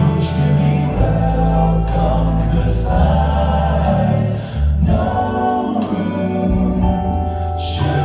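A vocal group singing in harmony over instrumental accompaniment with a strong bass line.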